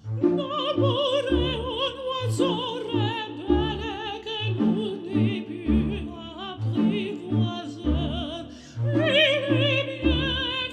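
A music track with a high female voice singing with wide vibrato over a steady beat.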